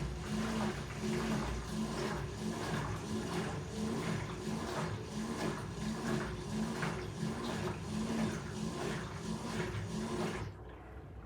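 LG 13 kg front-load washer-dryer running its drain stage before a spin: the machine runs with a regular pulse a little under twice a second as the drum turns the load, then stops shortly before the end.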